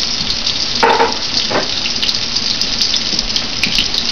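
Fish frying in hot oil in a cast-iron skillet: a steady sizzle with fine crackling. There is a brief pitched sound about a second in.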